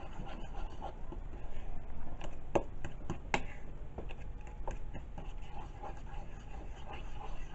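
Fork scraping and clinking against a ceramic bowl while mixing mashed banana and egg into batter, with irregular taps and two sharper clinks a little under a second apart near the middle.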